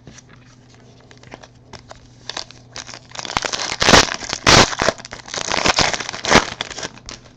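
Foil wrapper of a trading-card pack crinkling as it is torn open and crumpled. There are a few faint ticks first, then loud crinkling from about three seconds in until just before the end.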